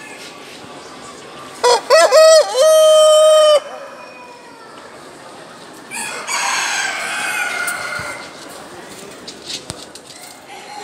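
Brahma rooster crowing once: a few short rising notes, then one long held note. A second, fainter and rougher crow follows about two seconds later.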